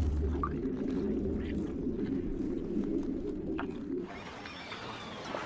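Muffled underwater water ambience that cuts off about four seconds in, giving way to a quieter riverside ambience with faint bird calls.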